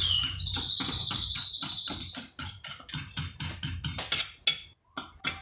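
Fork beating eggs in a ceramic plate: quick, rhythmic clicks of the fork against the plate, about four strokes a second, cutting out briefly near the end. A high, scratchy chirping sounds over the strokes during the first two seconds.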